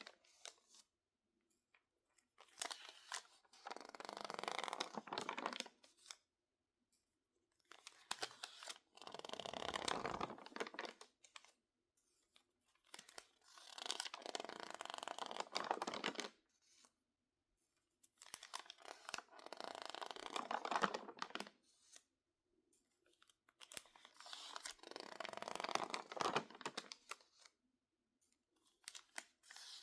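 Stiff, water-crinkled magazine pages being handled, crackling and crinkling in five long runs of about three seconds each, with short quiet pauses between them.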